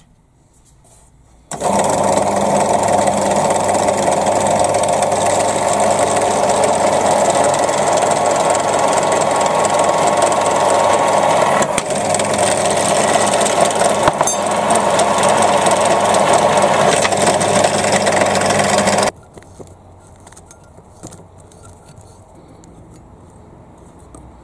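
Bench pillar drill running steadily while a 2.5 mm bit drills out a small nut, ready to be tapped for an M3 thread. The motor starts about a second and a half in and cuts off suddenly about nineteen seconds in.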